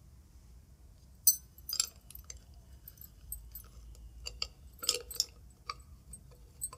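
Small metal clicks and clinks from a bent bicycle-spoke wire and a screwdriver being handled against a sewing machine's metal parts while the wire stand is fitted. A sharp click about a second in is the loudest, followed by scattered lighter ticks.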